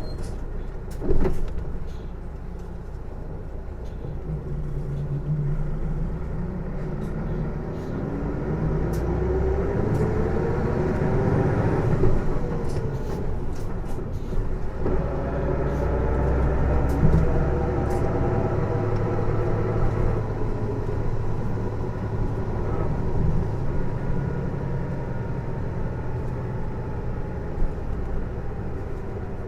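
Isuzu PJ-LV234L1 city bus heard from on board while under way: diesel engine rumble with a loud multi-toned whine that rises as the bus accelerates, peaks about 12 seconds in, then falls slowly as it eases off. The whine is louder than the engine, which the uploader takes to come from the drivetrain. A sharp knock comes about a second in.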